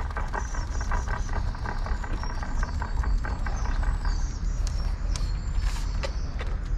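Outdoor lakeside ambience: a steady low rumble, like wind on the microphone, with small birds chirping high above it and a few light clicks near the end.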